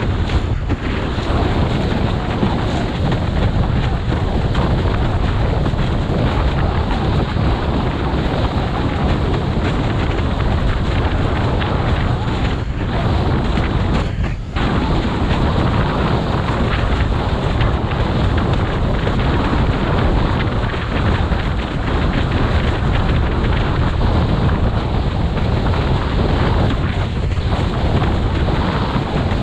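Wind buffeting the GoPro's microphone over the rush of water under a slalom windsurf board planing at speed. It is a steady, loud, noisy rush with a short dip about fourteen seconds in.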